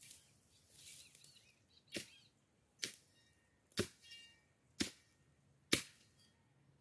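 Machete chopping into dry brush and weeds near the ground: five sharp strikes about a second apart, with some rustling of cut vegetation before them.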